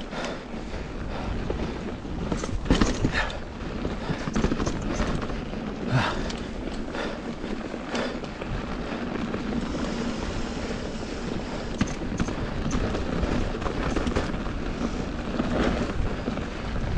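Mountain bike descending a loose dirt trail: steady wind on the microphone and tyres hissing over loose dirt, with the bike rattling and knocking sharply over rocks several times.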